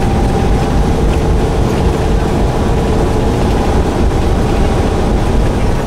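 Steady drone of a semi truck's diesel engine and tyre and road noise inside the cab while driving.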